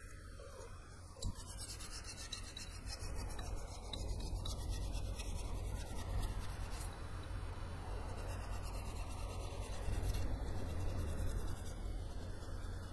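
Metal presser foot being rubbed smooth by hand in a vise: repeated rasping strokes of abrasive on metal, deburring the handmade foot in its last stage of smoothing.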